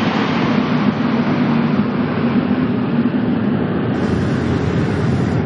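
Formation of eight F-16 Fighting Falcon fighter jets flying over, a loud steady jet roar.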